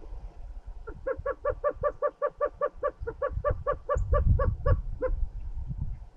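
Greater roadrunner calling: a rapid run of about twenty short, pitched notes, about five a second, lasting about four seconds, over wind rumble on the microphone.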